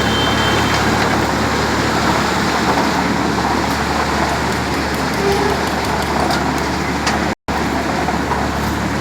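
Tractor engine running steadily under a broad rattling noise, powering a self-loading concrete mixer. The sound cuts out for an instant about seven seconds in.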